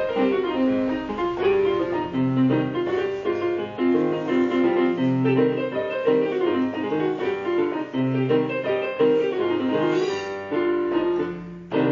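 Piano music: a run of quick notes played without pause.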